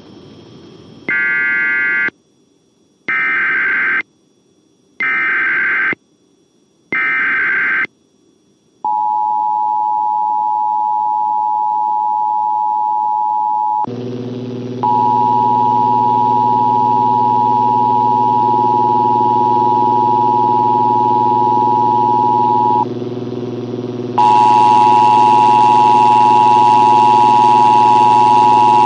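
Emergency Alert System tones: four short bursts of screechy data tones, about a second each with a second of silence between, then the steady two-tone attention signal. About 14 seconds in a lower buzzing tone is layered under it. The attention tones drop out briefly twice, and a hissing layer joins for the last few seconds.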